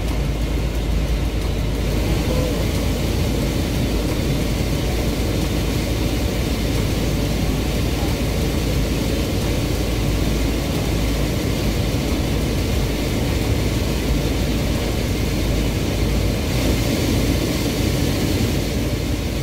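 Toyota Innova's replacement blower motor running on fan speed 2, a steady rush of air, over the engine idling. The new blower is now blowing air properly.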